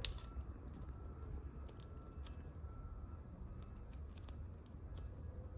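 Electrical tape being pulled off the roll and wrapped around spliced wires: faint, scattered crackling clicks over a low handling rumble.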